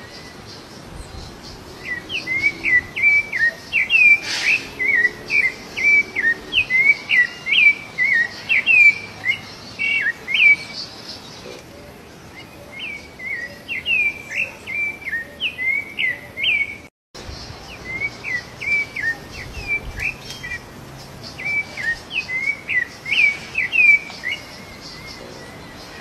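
Rufous-bellied thrush (sabiá-laranjeira) singing: repeated phrases of quick, clear whistled notes, broken by short pauses.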